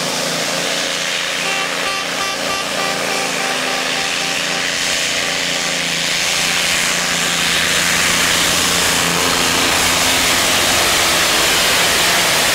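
Modified pulling tractor's engine running hard under load as it drags the weight-transfer sled down the track, getting louder from about halfway through. The sound is harsh and distorted from a faulty camcorder microphone.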